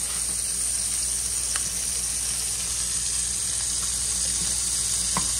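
Pieces of barrel fish sizzling steadily as they fry in hot grease in a pan. A couple of faint clicks come from a wooden spatula stirring a pot.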